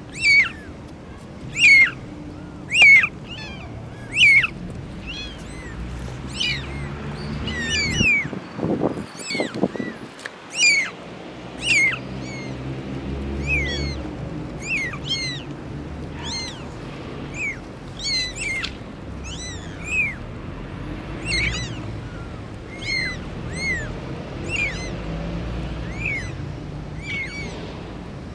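Newborn kittens mewing: a long run of short, high-pitched cries, about one every second or so, each arching up and falling away. About nine seconds in, a lower, longer sound joins in.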